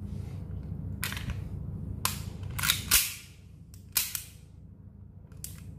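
KJW M9A1 gas-blowback airsoft pistol firing, several sharp cracks of gas discharge and slide cycling at irregular intervals, the loudest about three seconds in. A steady low hum runs underneath.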